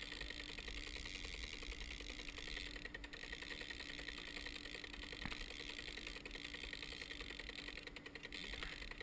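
Small outboard motor running steadily, a fast, even clatter over a constant low hum.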